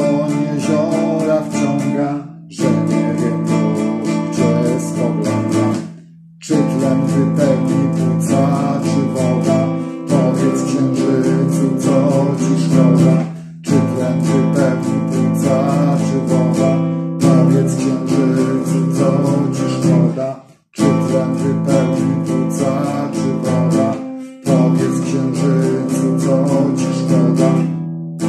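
A man singing a Polish song to his own strummed acoustic guitar. The strumming and singing stop briefly about every four seconds between phrases.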